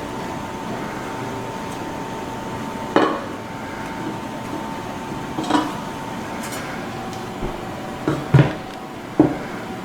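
Mixing utensil knocking and clinking against a bowl of ricotta cheesecake batter: a handful of sharp knocks, the loudest close together near the end.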